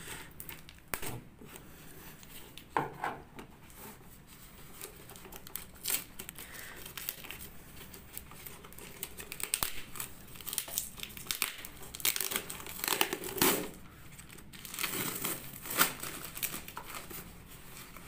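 A corrugated cardboard box being cut along its packing tape with scissors and then torn apart by hand: irregular ripping, crinkling and scraping of cardboard and tape, with louder tearing bursts in the middle and near the end.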